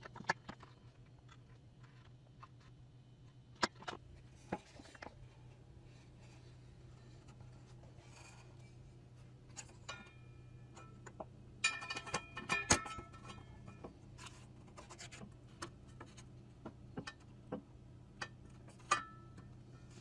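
Scattered light clicks and short ringing clinks, like small objects being handled, with a brief busy cluster about twelve seconds in, over a low steady hum.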